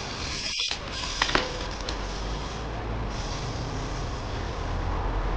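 Trials bike on paving stones: two sharp knocks a little over a second in, over the steady low rumble of road traffic.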